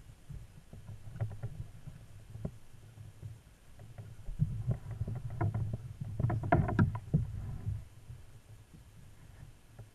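Clicks, knocks and light rattles on a plastic kayak while a largemouth bass is held and unhooked in it, over a low rumble. The knocks come thickest and loudest in the middle of the stretch.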